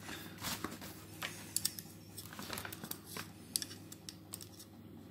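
A small screwdriver scraping and clicking along the chain groove of a steel chainsaw guide bar, picking out packed wood debris. The clicks are light, short and irregular.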